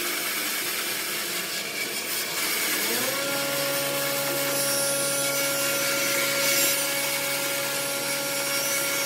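Bandsaw cutting through a thick pine block, the blade rasping steadily through the wood. About three seconds in the motor's hum rises in pitch and then holds steady.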